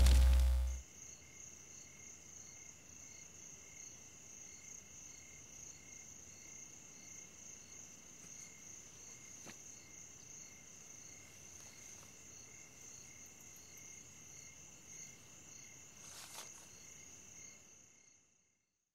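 A loud noise with a deep low end cuts off abruptly less than a second in. It leaves faint, steady cricket chirping, pulsing a few times a second, which fades out near the end.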